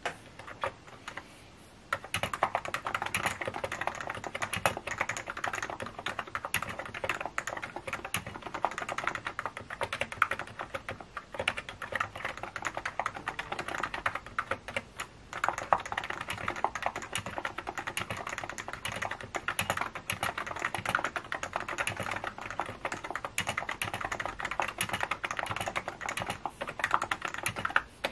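Computer keyboard being typed on, with rapid, continuous key clicks starting about two seconds in and brief pauses partway through.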